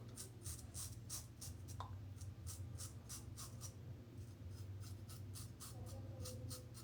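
Double-edge safety razor (Blackland Blackbird) scraping through lathered stubble in short, quick strokes, about three a second, with a brief pause midway.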